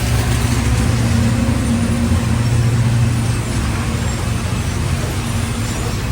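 A canal boat's motor running steadily while cruising, a continuous low hum.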